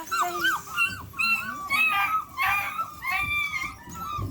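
Young puppies whining and yelping, many short high cries rising and falling in pitch and overlapping one another.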